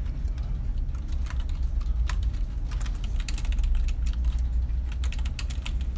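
Computer keyboard keys clicking in quick, irregular runs as someone types, over a steady low hum.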